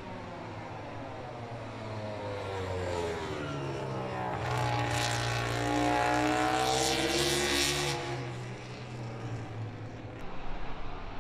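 MotoGP racing motorcycle engine at high revs on track, its pitch sweeping up and down as the bike goes by. It is loudest about five to eight seconds in, then fades.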